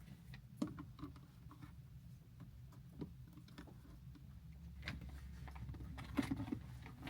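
Light clicks and knocks of plastic food containers being fitted into a mini fridge's compartment, a handful of separate taps, the loudest cluster near the end, over a low steady hum.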